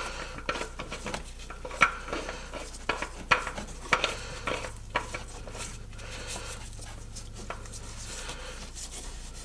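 Irregular light metallic clinks and taps of hand tools and parts being handled. After about five seconds they give way to a softer, steadier rubbing.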